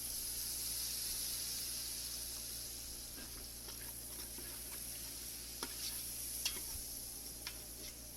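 Tomato and spice masala sizzling in hot ghee in a pan, just after soy sauce has been poured in. The sizzle eases slightly over several seconds, and a few light clicks of stirring come in the second half.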